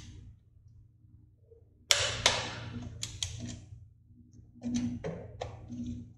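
Click-type torque wrench ratcheting and clicking as the air-cleaner backing plate bolts are torqued down to spec: a sudden group of sharp clicks about two seconds in, and another group near the end.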